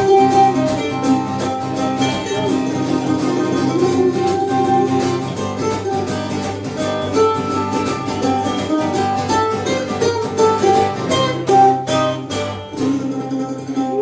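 Live band playing an instrumental passage of a folk-style song, with plucked guitar over sustained melody notes and a steady bass.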